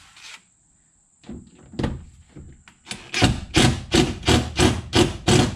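Screws being driven to fasten a door armrest to its door panel. A few scattered bursts come first, then a steady run of about eight short bursts, about three a second, in the second half.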